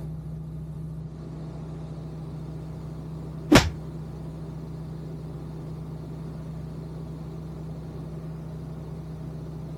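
Steady drone of the Vans RV-12iS's Rotax 912iS engine heard inside the cockpit, with one sharp click about three and a half seconds in.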